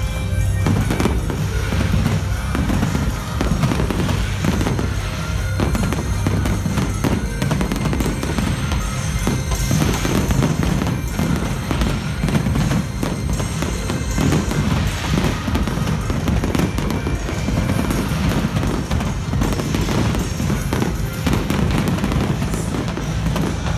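Fireworks going off in rapid, continuous volleys, with music playing underneath.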